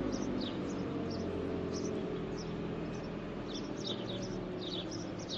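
Toyota car engine idling just after being started, heard from inside the cabin, its pitch easing slowly down as the idle settles. Repeated short bird chirps sound outside.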